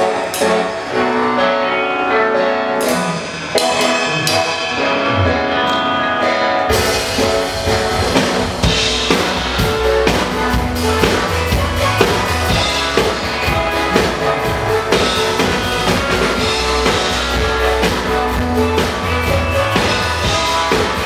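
Drum kit played to a recorded pop song: after a lighter instrumental intro, the drums and full band come in suddenly about six and a half seconds in, with kick drum and snare keeping a steady beat.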